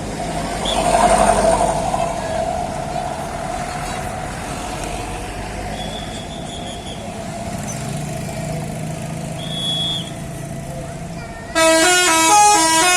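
Vehicle engine and road noise, then near the end a bus's Basuri telolet horn starts playing a loud tune of several horn notes that step up and down in pitch.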